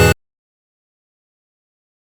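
A mock emergency alert alarm's steady synthesized tones cut off abruptly just after the start, leaving dead digital silence.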